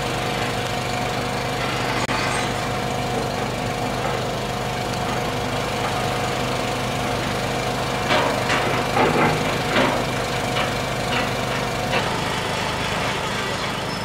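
Diesel engine of a Liebherr tracked excavator running steadily at a construction site, with a run of metallic clanks and scrapes a little past the middle as the machine works.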